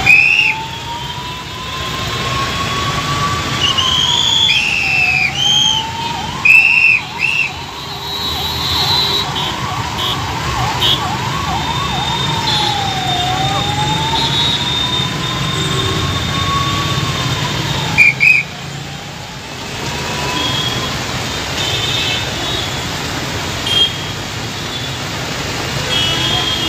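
An emergency-vehicle siren wailing, slowly rising and falling, with a fast yelp for a few seconds in the middle. Under it is the steady noise of heavy rain and traffic on a wet road. Short, loud, high-pitched toots cut in at the start, in a cluster from about four to seven seconds in, and again around eighteen seconds.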